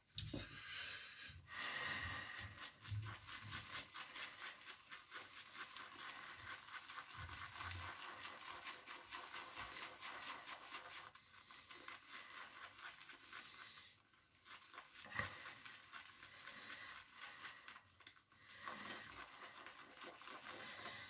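Zenith boar-bristle shaving brush whisking shaving soap into lather in a smooth shaving bowl: faint, quick, continuous swishing with a few short pauses.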